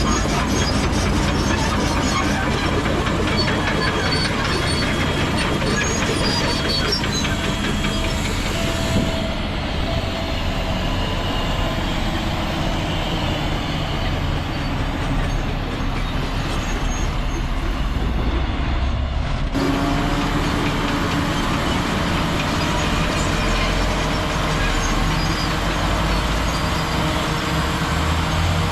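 Bulldozer working: its diesel engine running steadily under load, with thin high tones coming and going over the noise. The sound shifts abruptly about two-thirds of the way through.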